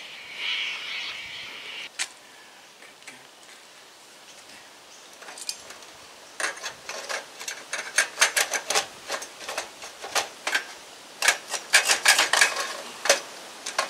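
Brief rubbing as grease is worked into a BMX bottom-bracket cup, then many sharp, irregular metal clicks and clinks as the crank is fitted into the bottom bracket, densest over the second half.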